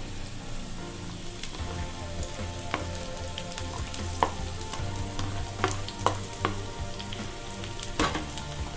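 Julienned carrot, capsicum and cabbage sizzling in hot oil in a frying pan, with a steady frying hiss and scattered sharp crackles as the vegetables go in.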